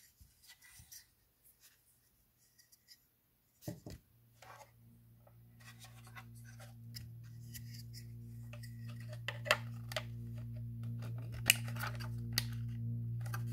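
Hard plastic toy spaceship parts clicking and scraping as they are handled, with a few sharp clacks near the end. A low sustained musical drone fades in from about five seconds.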